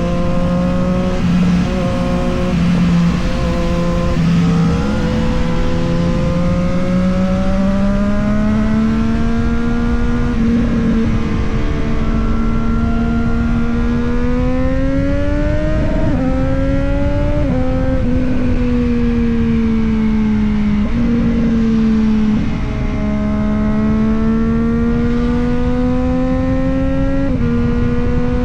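Triumph Street Triple 765 RS inline three-cylinder engine and exhaust under way. Its pitch climbs steadily and then steps down or falls back several times as the bike accelerates, changes gear and eases off, over a steady rush of wind and road noise.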